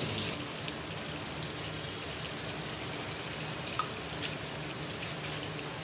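Water being poured into a hot kadhai of chicken masala, giving a steady hiss, with a few faint clicks past the middle.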